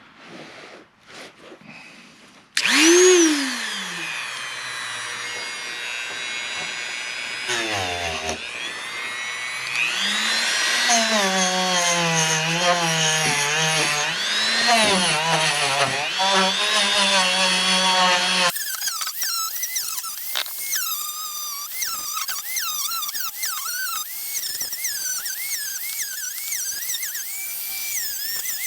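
Dremel rotary tool fitted with a wire brush starting up about two and a half seconds in, after a few light handling knocks, and running at high speed, its whine dipping and recovering in pitch as the brush is pressed against the corroded turn-signal housing to scrub out crud. About eighteen seconds in the whine changes abruptly to a higher, wavering pitch.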